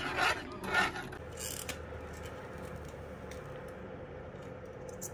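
A utensil scrapes and stirs around a small metal saucepan of sauce a few times in the first second or so. After that only a faint, steady hum remains.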